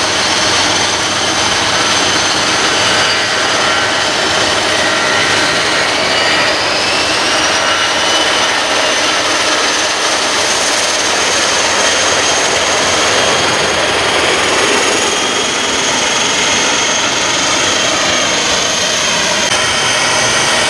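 Airbus A320 jet engines at takeoff thrust through the takeoff roll and lift-off: a loud, steady rush with a high whine that rises in pitch a few seconds in as the engines spool up.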